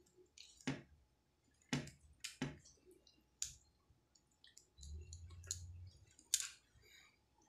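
Sharp clicks and taps of a plastic pry tool working on an opened Huawei Nova 3 smartphone, prying at its flex-cable connectors and frame, about seven clicks spaced unevenly. A brief low rumble comes a little past the middle.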